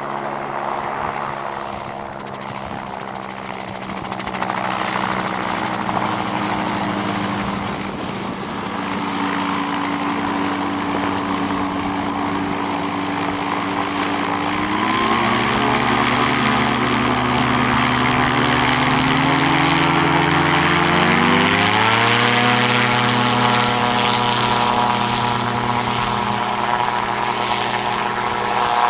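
Two-stroke Rotax 582 engine of a single-seat Merlin gyroplane running with its rotor turning. The engine note steps up about halfway through and again, higher, about three quarters through, as the throttle opens for the take-off roll, then holds at high revs.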